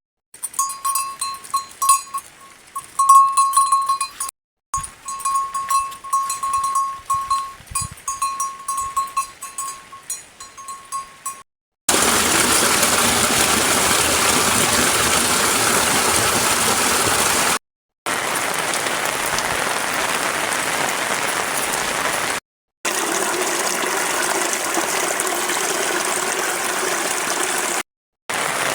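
Heavy monsoon rain and rushing water making a loud, steady noise through several short cuts. Before that, in the first part, there are irregular sharp knocks over a thin, steady high tone.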